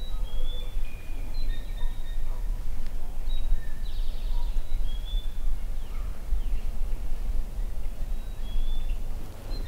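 Songbirds chirping in the woods: short, high whistled notes and chirps scattered throughout, over a steady low rumble.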